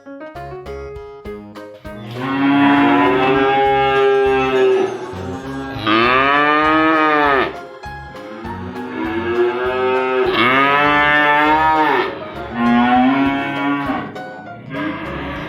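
Domestic cow mooing repeatedly: a run of long, drawn-out moos, one after another, starting about two seconds in, over light background music.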